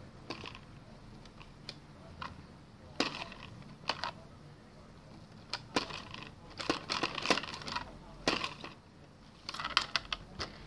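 Plastic clicks, knocks and rattles from a toy side-loader garbage truck's lift arm, worked by hand as it raises and tips a plastic cart into the hopper. The clicks come in several short clusters, densest about two-thirds of the way through and again near the end.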